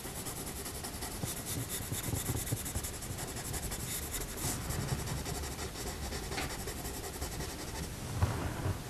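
Coloured pencil scratching across drawing paper in quick, short, repeated strokes, with a soft bump near the end.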